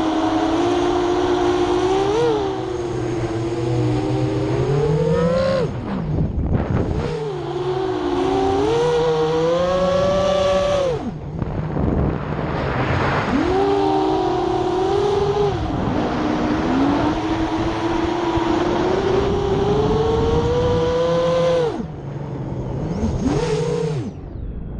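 FPV freestyle quadcopter on an 8-inch frame with 7-inch HQ 7040 three-blade propellers, its motors and props buzzing, the pitch rising and falling with the throttle. Three times, about six, eleven and twenty-two seconds in, the throttle is cut and the buzz drops away briefly before climbing back.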